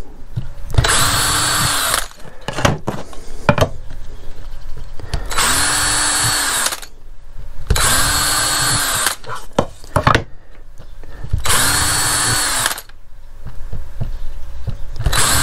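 DeWalt cordless drill boring pilot holes into the edges of plywood pieces, in four short runs of about a second and a half each, its motor whine rising as it spins up and dropping as it stops. Another run starts at the very end, with light knocks of handling the wood in between.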